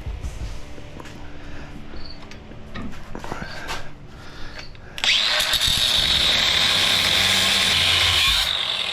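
Clanks and handling knocks for about five seconds, then a Ryobi cordless reciprocating saw starts with a rising whine and runs steadily for about three and a half seconds, cutting through copper scrap held in a vise, before stopping near the end.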